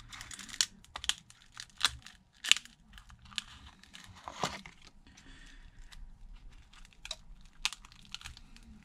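Cracked phone screen glass crackling and snapping as the broken screen is pried up with a thin tool, in irregular sharp cracks, the loudest about two and a half seconds in.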